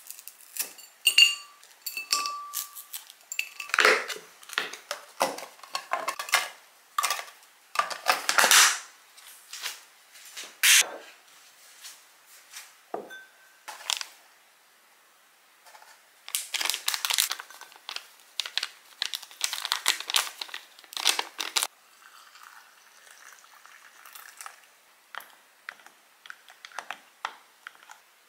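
Tableware being handled: plates, a glass and a plastic food container clinking and knocking on a table, a few clinks with a short ring near the start. Parchment paper crinkles in between.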